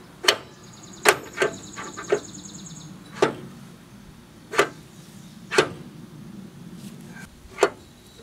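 Sharp metallic clicks and knocks, about ten at irregular intervals, from a socket wrench turning the spindle pulley nut on a riding-mower deck as it is tightened down.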